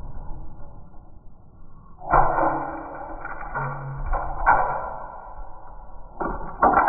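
Hollow plastic toy barrel tumbling down carpeted stairs, with plastic monkeys scattering: a quiet start, then a run of knocks and clatters about two seconds in, and more knocks near the end.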